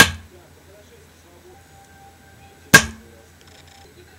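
Two sharp cracks, one at the very start and another nearly three seconds later: a homemade combustion pistol firing darts, its spark igniting a gas-air mixture in the chamber, each dart striking a plastic-and-foam target.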